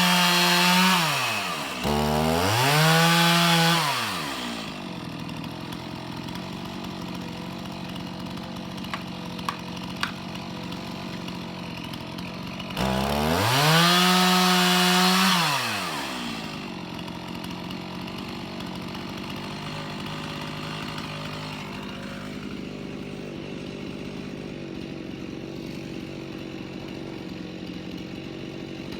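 Two-stroke chainsaw held at full throttle, dipping and rising again, then dropping to a steady idle. Around 13 seconds in it revs up to full throttle again for about three seconds before falling back to idle.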